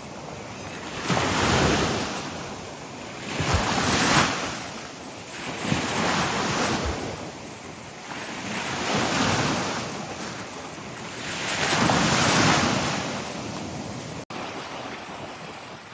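Wind-driven waves on the Chesapeake Bay washing ashore, the surf swelling and fading about five times, every two to three seconds, with wind buffeting the microphone.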